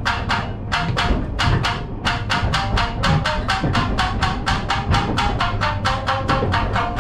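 Two tsugaru shamisen played together, a fast, even run of hard percussive plucks, roughly six a second, with the plectrum snapping against the skin on each note.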